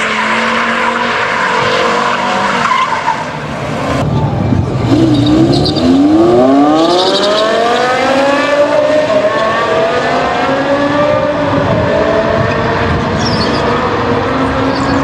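BMW S85 naturally aspirated V10 engine of an E60 M5 running. It holds a steady note at first; after a cut about four seconds in, it revs up with a steeply rising pitch over about three seconds, then holds a high, steady note.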